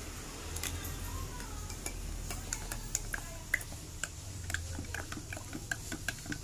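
Metal spoon stirring a drink in a glass tumbler, clinking against the glass in quick, irregular light taps.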